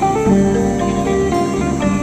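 Background music led by a plucked guitar, played as a run of quick notes.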